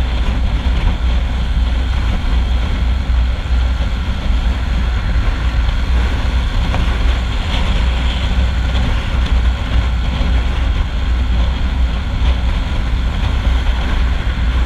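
Hozaka 150 GNX motorcycle running steadily at highway cruising speed, its engine drone mixed with a continuous low wind rumble on the microphone.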